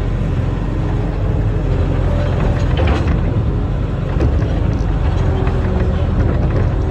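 Barge-mounted excavator's diesel engine running steadily, with a cluster of sharp knocks and clanks about three seconds in and scattered lighter clicks after.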